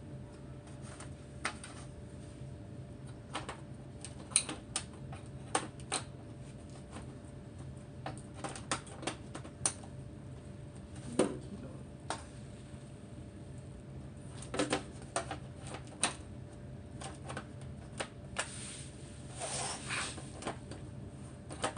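Irregular light clicks and taps of plastic monitor parts being handled and fitted during reassembly, over a steady low hum. A longer rustling scrape comes near the end.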